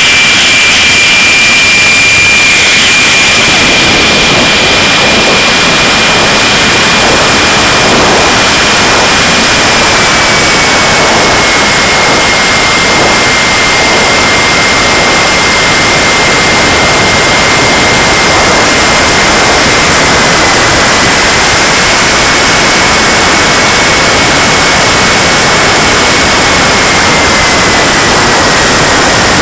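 KingTech K80 model jet turbine of an RC Tornado running steadily: a loud, even rushing roar with a high turbine whine that eases slightly lower twice.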